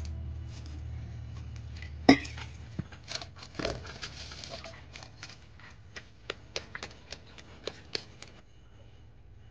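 Hands working a ball of dough over a floured steel bowl: a sharp knock about two seconds in, then a run of soft pats, taps and rustles that stops shortly before the end.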